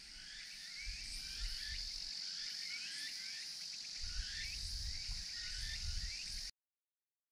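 Insects singing: a steady high-pitched drone with short rising chirps repeating over it, and a low rumble that comes and goes. The sound cuts off abruptly near the end.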